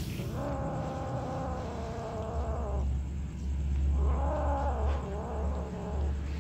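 A kitten making two long, drawn-out, wavering calls while feeding, the first starting about half a second in and the second about four seconds in, over a low steady rumble.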